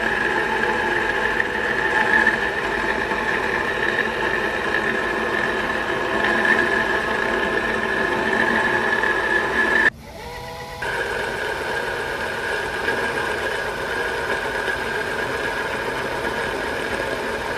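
Small DIY lathe spindle running steadily with a high whine while a tool turns a 5 mm steel shaft. About ten seconds in the sound drops away for about a second, then comes back slightly quieter.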